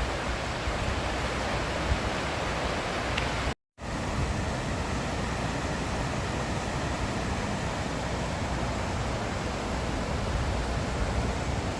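Steady rush of a mountain river flowing through a canyon gorge, with a brief dropout about three and a half seconds in.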